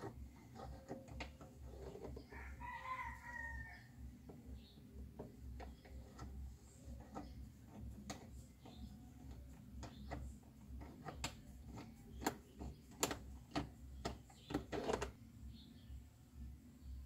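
A rooster crows once in the background about two seconds in. Sharp clicks and ticks of a screwdriver working at the plastic door trim panel of an Audi A6, getting denser and louder in the second half.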